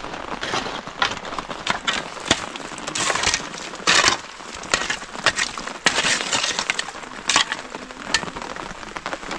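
Metal shovel blade digging into stony mud, an irregular series of sharp clinks and scrapes as it strikes gravel and stones. Steady rain patters underneath.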